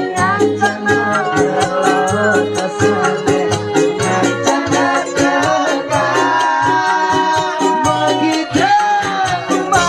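Balinese pop song performed live: a male lead singer's voice through the PA over a band with a bass line and a steady beat.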